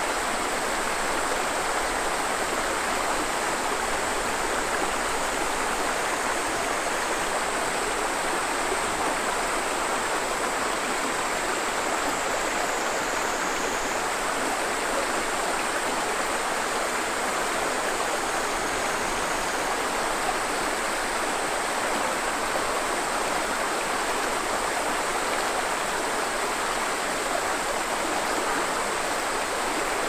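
Mountain valley stream flowing: a steady, even rush of water with no breaks.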